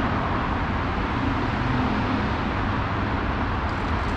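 Steady background hum of road traffic, a continuous low rumble with no distinct events.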